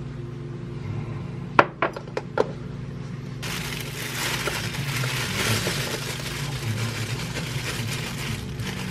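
A thin black plastic bag crinkling and rustling as it is pulled down over a plastic sprouting tray, starting about three and a half seconds in. A few sharp clicks, about four in under a second, come before it.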